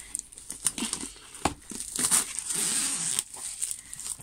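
Cardboard box and packaging rustling and crinkling as the box is handled and opened, with a sharp tap about a second and a half in.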